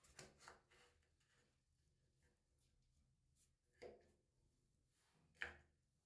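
Faint rubbing of a cloth wiping a glass gas hob around its burners and knobs, with a few soft knocks and scuffs, the clearest near the end.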